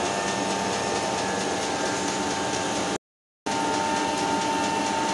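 Metal lathe running under power with a steady gear whine while a boring bar cuts inside a steel workpiece to open up the bore. The sound cuts out for a moment about three seconds in, then carries on the same.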